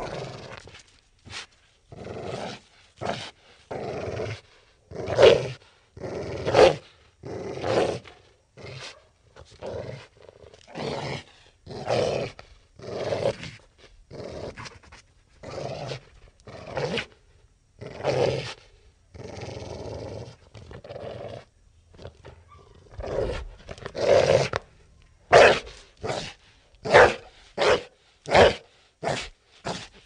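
Wolf growling and snarling in a rapid series of short, rough bursts, with one longer drawn-out growl about two-thirds of the way through. The loudest snarls come a few seconds in and in a quick run near the end.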